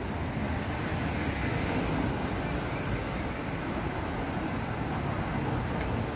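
Steady city street traffic noise: a continuous low rumble with a hiss over it and no distinct events.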